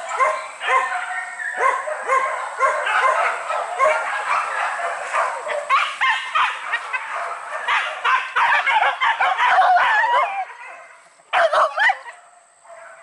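A pack of hunting dogs barking and yelping together in a dense, overlapping chorus. It dies away about ten seconds in, then comes one short burst of yelps near the end.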